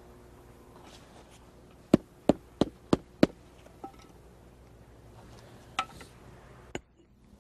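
Sharp knocks on retaining-wall blocks as they are set in place: a quick run of five, about three a second, some two seconds in, then a few single knocks.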